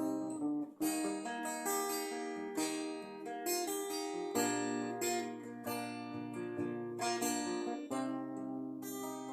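Acoustic guitar played on its own, chords strummed in a steady rhythm with each chord ringing on into the next.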